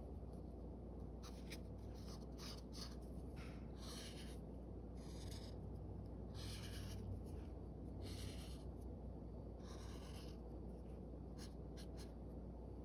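Felt-tip washable marker drawing on a folded paper towel: a dozen or so short, scratchy strokes of the tip across the paper, one after another, over a faint steady hum.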